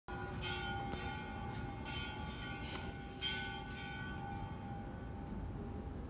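A church bell ringing, three strokes about a second and a half apart, each leaving a hum that fades out over the next few seconds, over a low background rumble.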